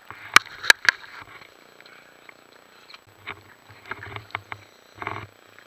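Handling knocks and clatter of scuba gear and the camera on a crowded dive boat: three sharp knocks in quick succession about half a second in, then scattered softer knocks and a short low rumble about five seconds in.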